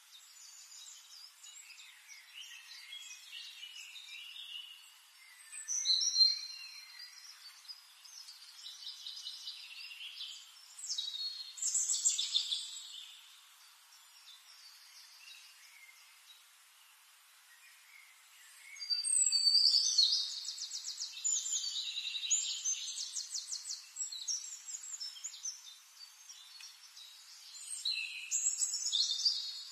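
Birds chirping and trilling in bursts with quieter gaps between them, thin and high-pitched with no low end; a long run of fast trills comes about two thirds of the way through.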